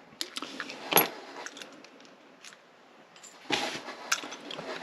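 Small metallic clicks and scrapes of lock-picking tools working in a pin-tumbler lock cylinder, with a sharper click about a second in and a short rustling scrape about three and a half seconds in.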